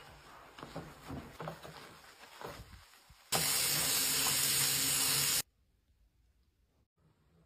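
A sponge scrubbing a white ceramic sink coated in cleanser, with uneven rubbing strokes. About three seconds in, a tap runs hard into the sink with a steady, loud hiss for about two seconds, then cuts off suddenly.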